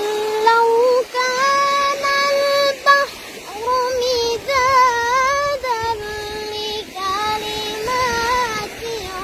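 A child's high voice chanting Qur'anic recitation in a melodic style, holding long wavering notes in several short phrases with brief breaks between them.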